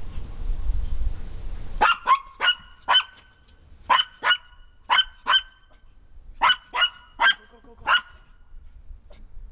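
Maltese dog barking: about a dozen short, high-pitched barks, mostly in quick pairs, starting about two seconds in and stopping a second and a half before the end.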